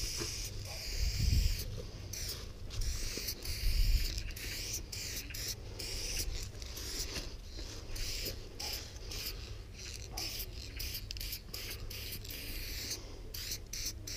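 Aerosol spray can of Kobra Krome copper chrome paint with a yellow fat cap, hissing as paint is sprayed onto a wall in repeated on-and-off bursts. Low rumbles come about a second in and at about four seconds.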